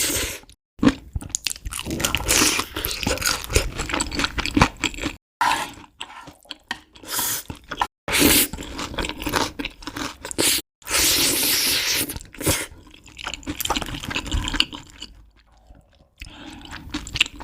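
Close-miked mukbang eating sounds: a person biting, crunching and chewing spicy cheese noodles and chilli shrimp, with wet clicks and noisy mouth sounds. The sound is broken by several abrupt cuts to silence.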